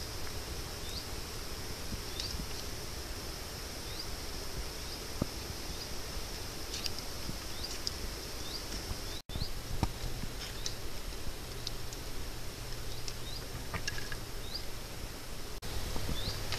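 A steady high insect-like trill with short chirps about once a second, over scattered small clicks and scrapes of a knife working thin rods against a wooden board.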